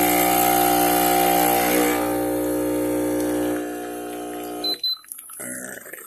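Brim 19-bar espresso machine's pump running with a steady hum as a shot pulls while the single-shot volume is being programmed; it cuts off suddenly a little under five seconds in, with a quick high double beep as it stops.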